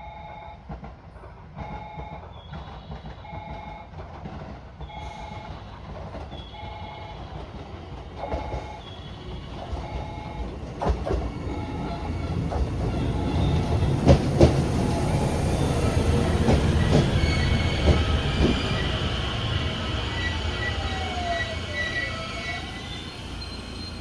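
An electronic warning bell rings about once a second. Then a train comes through, its rumble building with clicks of wheels over rail joints and wheel squeal, loudest past the middle. A falling motor whine follows near the end.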